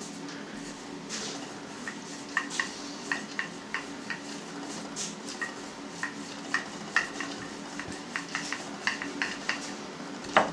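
Wooden rolling pin rolling out dough on a floured board, with irregular light clicks and taps as the pin and hands knock against the board. A steady low hum runs underneath.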